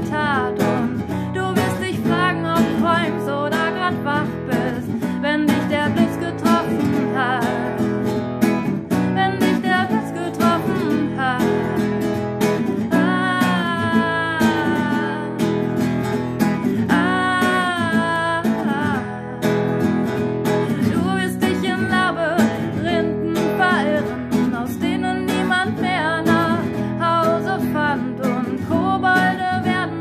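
A woman singing to her own strummed acoustic guitar, with a few long held notes near the middle.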